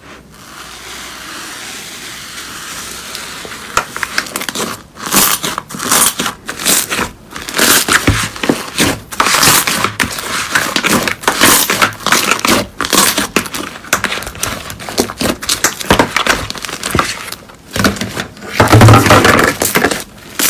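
Green cotton slime, its surface risen into fluffy strands, being pulled apart and pressed by hand: crackling, tearing bursts that come again and again. Quieter for the first few seconds, then loudest near the end as it is pressed flat.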